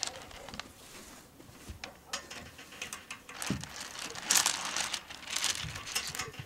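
Small stones clicking and clattering against each other as hands rummage through a wicker basket full of pebbles, with rustling. The handling grows busier and louder about four seconds in.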